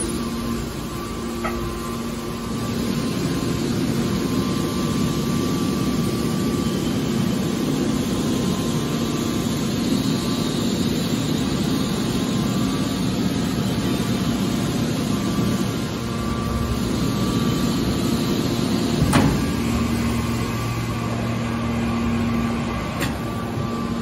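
Hydraulic metal baler running, a steady mechanical hum. A single sharp knock comes about three-quarters of the way through.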